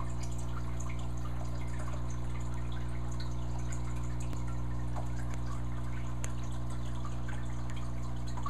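Aquarium filter and air bubbler running: a steady low electrical hum with water trickling and bubbling, and scattered small drips and splashes.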